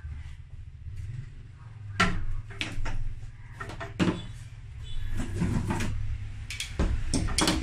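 Knocks and clatter of a Megatec mini inverter welder being set down on a mat and its welding cables being handled, several separate sharp knocks with some rustling between them.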